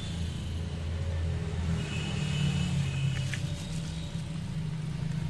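A steady low rumble, with a faint high tone in the middle and a few faint ticks a little over three seconds in.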